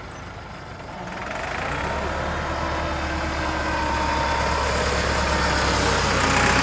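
Farm tractor's diesel engine revving up about a second in, then running hard under load as it tries to tow a car stuck in soft river sand.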